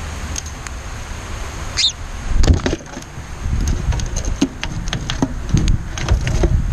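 A bird gives a short high chirp a little before two seconds in, among many sharp clicks and a low wind rumble.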